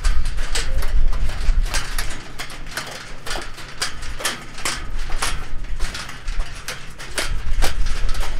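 Metal prayer wheels spun by hand one after another, giving a quick, irregular string of knocks and clicks as hands strike them and they turn on their spindles. A low rumble runs underneath, loudest at the start and again near the end.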